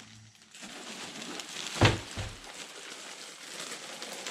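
Packaging being handled with a light rustle, and one sharp knock about two seconds in.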